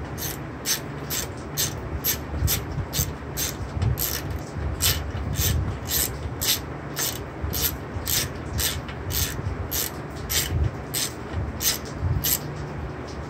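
Hand ratchet being worked in short strokes to tighten a bolt on a lawn mower engine's housing, giving sharp clicks at a steady pace of about two a second over a low background hum.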